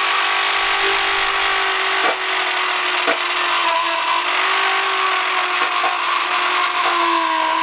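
Dremel-type rotary tool running at a steady speed with a small brass-coloured wire brush, scrubbing old paint off a bare aluminium motorcycle fuel tank: a steady motor whine over the hiss of the wire brush on metal. Two light clicks come about a second apart a few seconds in.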